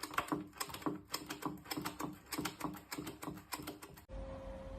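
Rapid, even tapping or clicking, about four strokes a second, which stops abruptly about four seconds in. A faint steady hum follows.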